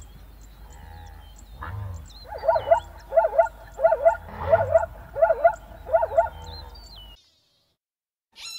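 Zebra calling: a run of six short barking yelps, evenly spaced about two-thirds of a second apart, over thin high chirps, then the sound cuts out near the end.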